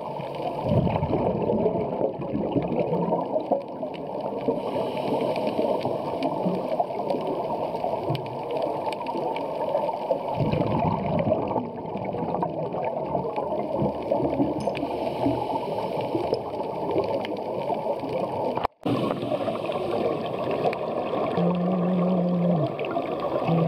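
Underwater scuba sound: divers' exhaled bubbles gurgling and rumbling steadily, heard muffled underwater, with a brief gap about three-quarters through.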